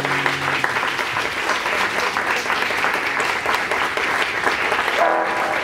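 Audience applauding steadily as the band's final held chord cuts off right at the start. A voice sounds briefly near the end.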